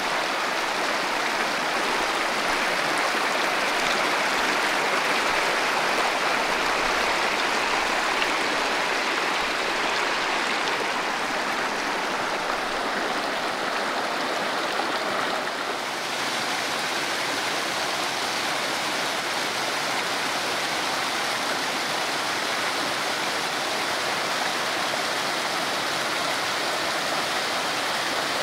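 Steady rush of a stream's flowing water, shifting slightly in tone a little past halfway.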